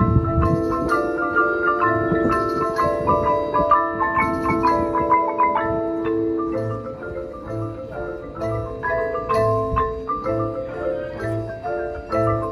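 Marching band front ensemble playing mallet percussion, marimbas and other keyboard percussion, in quick running notes over held chords, with a soft low pulse about once a second. The passage grows softer and the runs thin out about halfway through.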